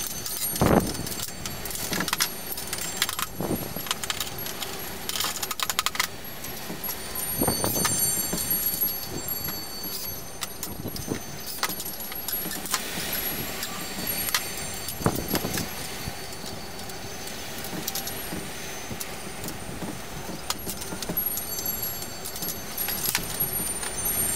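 Wire being handled and worked on a plywood worktable: irregular metallic clinks, jingles, taps and short scrapes.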